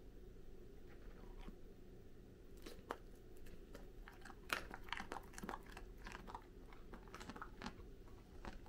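A Goldendoodle biting and chewing a piece of carrot: a run of short crunchy bites that starts a few seconds in and is thickest and loudest around the middle.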